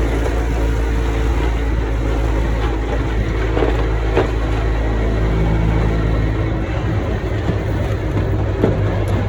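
Vehicle engine running while driving over rough farm ground, heard from on board, with a steady low drone whose note changes about two-thirds of the way through and a few knocks and jolts.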